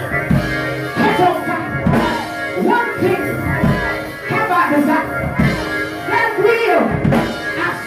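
Live church band music with drums and guitar, with a voice singing over it in short, bending phrases.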